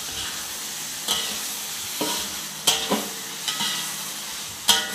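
Beef rendang sizzling in the pot while it is stirred, with a utensil scraping and knocking against the pot several times, loudest around the middle and near the end. The meat is being stirred often so the cooking-down sauce doesn't scorch.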